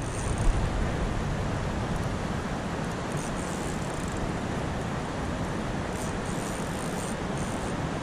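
Steady rushing of creek water over rapids. A short knock about half a second in.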